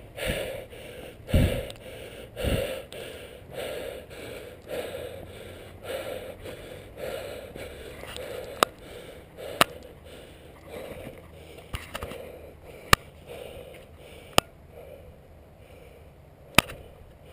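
A mountain biker breathing hard, in and out about once a second, fading toward the end. Two dull thumps come a couple of seconds in, and a few sharp clicks in the second half.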